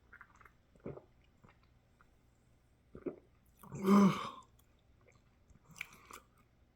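A person chewing and biting food, heard close up as a few separate wet mouth noises and crunches, with one louder, short voiced sound from the throat about four seconds in.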